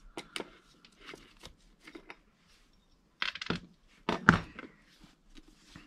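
Gloved hands handling an RC monster truck's wheel and tyre: scattered light clicks and rustles, a louder rustle a little past three seconds, and a sharp knock just after four seconds.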